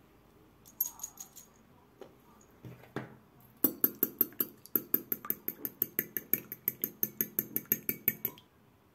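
A hand-twisted pepper mill grinding briefly, a few quick clicks, then about four seconds in a fork whisking raw eggs in a ceramic bowl, its tines clinking against the bowl about six times a second until shortly before the end.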